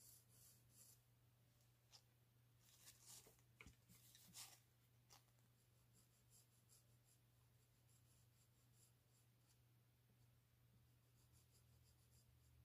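Faint scratching strokes of a pencil on paper, in short runs: a few at the start, a louder cluster about three to four seconds in, and a few more near the end, over a low steady hum.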